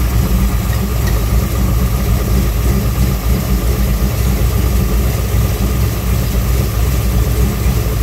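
Car engine idling steadily, its new serpentine belt turning the power steering pump and AC compressor; no distinct pops stand out.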